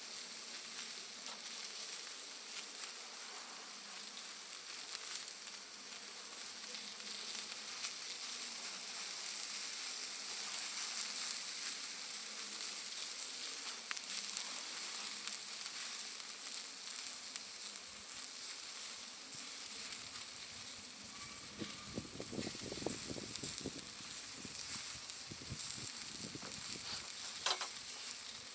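Wood and charcoal fire crackling and hissing steadily, with many small pops from burning Iwate cut charcoal. A stretch of low knocking and rustling comes about three-quarters of the way through.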